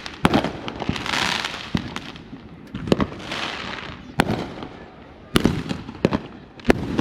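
Fireworks going off: a run of sharp bangs about a second apart, with spells of hissing crackle between some of them.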